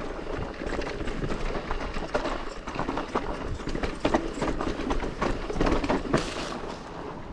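Santa Cruz Bullit electric mountain bike rolling down a dirt trail, its tyres crunching over dirt and leaf litter while the frame and drivetrain rattle with many small knocks, over low wind rumble on the microphone. There is a brief louder hiss just after six seconds.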